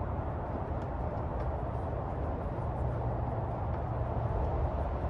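Steady low rumble of outdoor background noise, with a few faint ticks as a screw is driven into a plastic motor cover.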